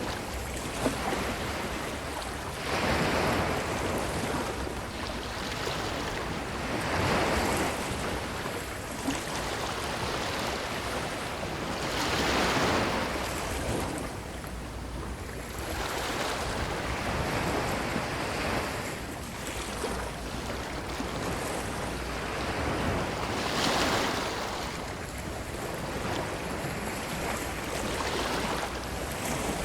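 Ocean surf breaking and washing up a beach, the noise swelling with each wave about every four to five seconds.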